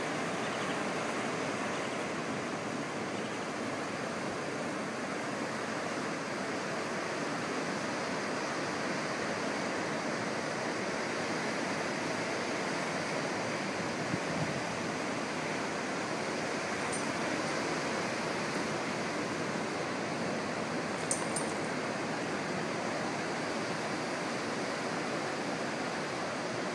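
Pacific Ocean surf breaking on a sandy beach, heard as a steady, even rush of water without distinct single crashes.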